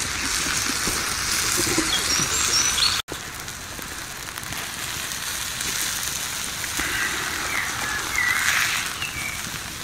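Steak and asparagus sizzling on a hot slate over a wood fire: a steady hiss that drops out briefly about three seconds in. A few short bird chirps sound over it.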